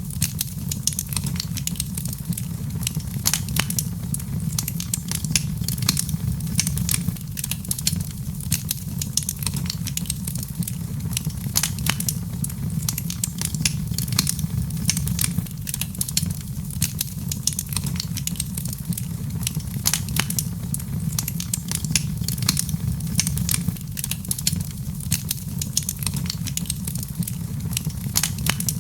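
Wood fire crackling in a fireplace: dense, irregular sharp pops and snaps over a steady low rumble of the flames.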